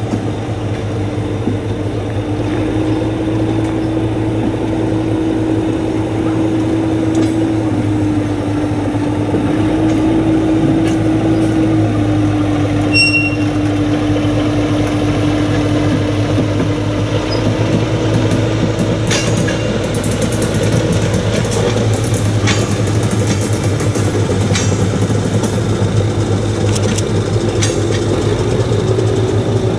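SNCF X 2800 diesel railcar pulling out with its trailers. The engine drone steps up and down in pitch a few times, and about two-thirds of the way through the wheels click sharply over rail joints and points.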